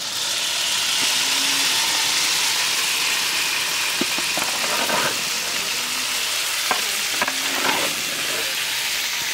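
Hot fried masala sizzling as it is tipped and scraped out of a metal wok onto water caltrops, a steady hiss that cuts off suddenly at the end. A few clinks of a metal spoon against the pan from about halfway through.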